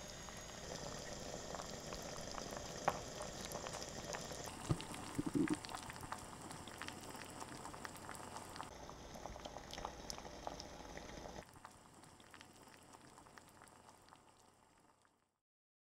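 Hot-pot broth bubbling at a simmer in a ceramic pot on a portable gas burner, a steady bubbling with scattered small pops and a few sharper taps. It drops quieter about two-thirds of the way through and then fades out.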